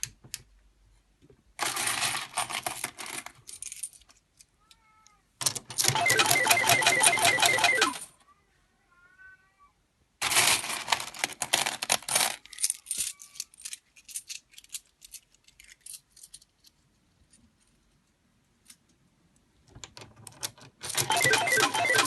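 Hanabi pachislot machine paying out tokens: four bursts of dense metallic rattling as medals pour into the tray, each lasting a few seconds, with faint short electronic chirps between the bursts.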